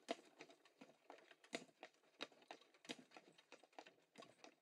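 Faint, irregular clicking and knocking, a few sharp clicks a second, thinning out near the end.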